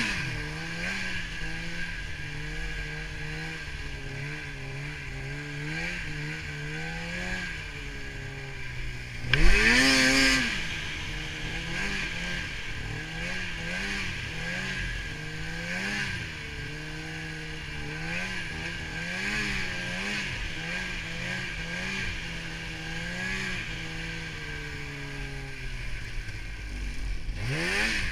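Polaris snowmobile engine running as it rides through soft snow, the throttle worked up and down so the pitch wavers constantly, over a steady hiss. About a third of the way in a sharp rev rises and falls, the loudest moment, and another rev starts near the end.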